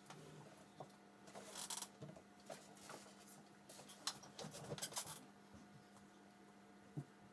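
Faint clicks and scrapes of a computer mouse being clicked and pushed about on a desk, among light rustles, over a low steady hum.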